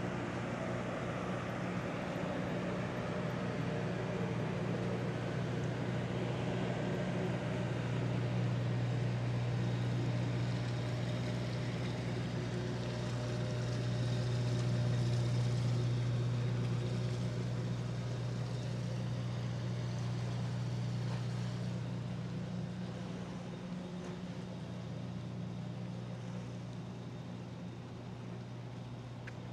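Steady low hum of a moored ship's engine or generator running at berth, loudest about halfway through and fading a little near the end.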